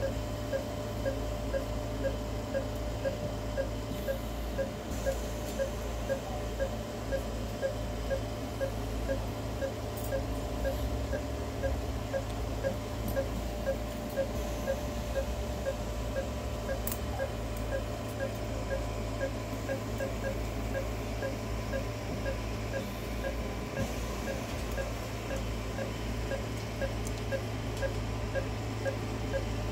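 Anesthesia patient monitor giving a short regular beep, a bit faster than once a second, pacing the anesthetized dog's pulse, over a steady low equipment hum.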